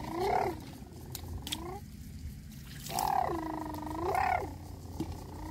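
An animal calling three times: drawn-out, wavering cries that dip and then rise in pitch, the last and longest about three seconds in.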